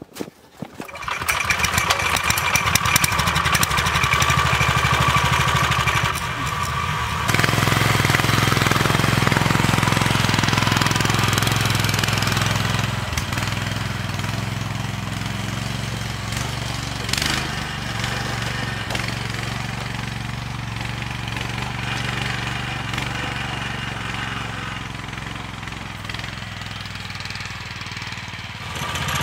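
The single-cylinder 15 hp Lifan engine of a homemade four-wheel-drive mini-tractor running under load with a rapid, even exhaust beat as the tractor climbs a snowy slope. It gets louder about seven seconds in, then slowly fades and picks up again near the end.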